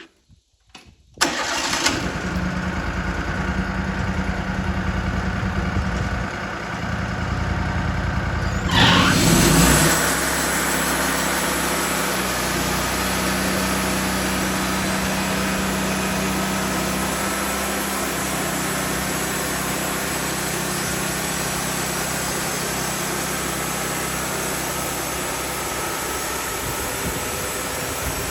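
The engine of a 2003 Wood-Mizer LT40 portable band sawmill starts suddenly about a second in and runs steadily. About nine seconds in it swells briefly, then settles into a steady run with more high-pitched mechanical noise.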